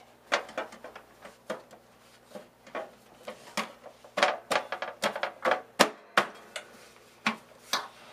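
Irregular clicks and knocks of a screwdriver and hands on the sheet-metal case of a Behmor 1600 home coffee roaster as its cover screws go back in and the body is handled, with the loudest knocks about six seconds in.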